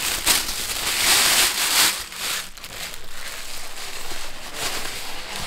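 Tissue paper crinkling and rustling as it is crumpled by hand and stuffed into a paper gift bag, loudest about a second in and then softer.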